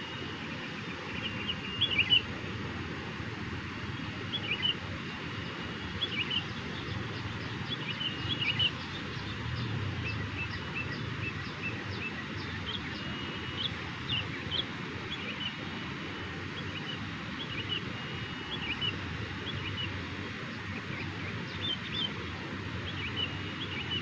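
Sooty-headed bulbul (kutilang) calling: short bright chirps every second or two, over steady outdoor background noise with a faint, thin, steady high tone.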